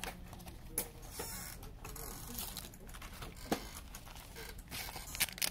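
Paper inserts and a cardboard mini-LP CD sleeve being handled: soft sliding rustle of paper with a few light taps and clicks of card being set down.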